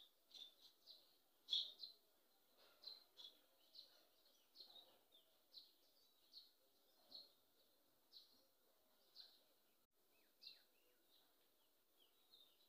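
Faint bird chirping: short, high chirps repeated about once a second, with one louder sharp sound about a second and a half in.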